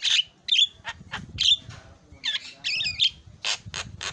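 Javan myna giving a rapid run of short harsh squawks and clicks mixed with chattering whistled notes, some sweeping up and down in pitch, part of its song with mimicked sounds.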